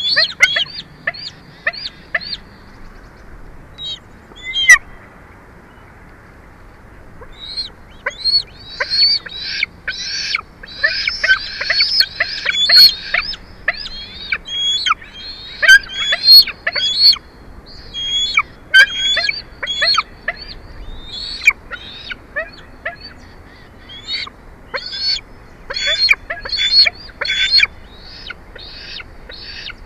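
Bald eagle calls: runs of short, high piping notes in quick succession, with a lull about five seconds in, then long bouts of chattering.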